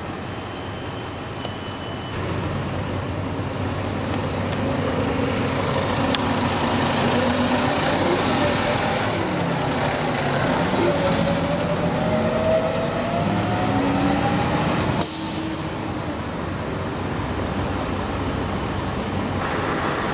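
Heavy vehicle engine running on a city street, its note gliding and then climbing, with a brief hiss about three-quarters through, after which the sound drops suddenly to a steady street hum.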